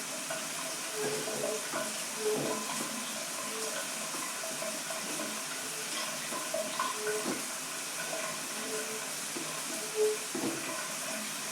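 Hot shower running in a small bathroom: a steady hiss of spraying water, with short faint squeaks now and then.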